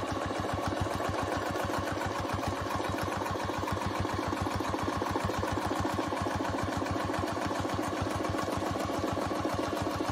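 Domestic sewing machine running steadily and stitching free-motion quilting, the needle going up and down in a fast, even rhythm.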